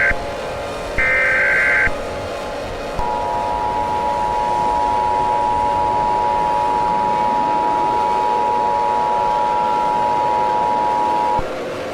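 Emergency Alert System alert: a burst of screechy SAME header data tones about a second in, then the two-tone EAS attention signal held steady for about eight seconds before cutting off abruptly, announcing an Emergency Action Notification. A steady low drone runs underneath.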